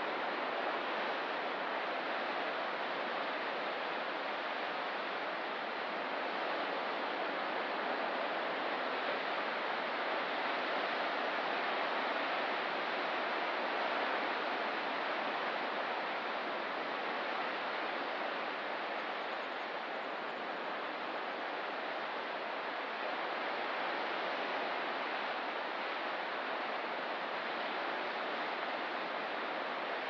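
Ocean surf as a steady, even rushing noise that swells only slightly in loudness, with no single wave breaking out from it.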